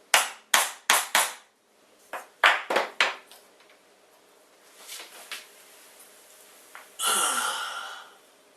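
Light knocks and taps as parts of a CNC frame built from printer parts are handled and fitted: four quick knocks, a pause, then four more. A few fainter ticks follow, then a scraping rub about a second long near the end.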